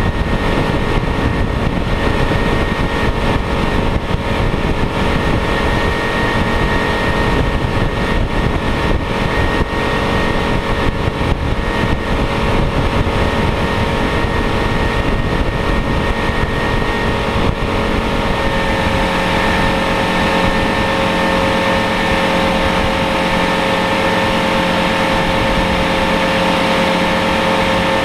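Motorboat engine running steadily under way, with wind and water rushing past. About eighteen seconds in the engine note changes and steadies into a more even hum with less low rumble.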